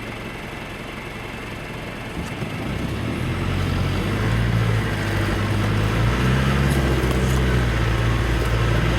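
Off-road vehicle's engine running, growing louder from about two and a half seconds in and then holding steady at the louder level.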